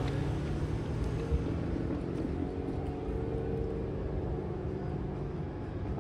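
Road traffic: a car driving over the level crossing and away, with a steady low traffic rumble.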